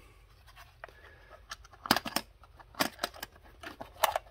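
Snap latches of a hard plastic knife case being unclipped: sharp plastic clicks in three quick groups about a second apart, starting about two seconds in.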